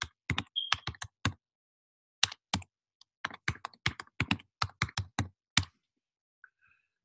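Typing on a computer keyboard, keying in a password: a short run of keystrokes, a pause of about a second, then a longer run of about three seconds before the typing stops.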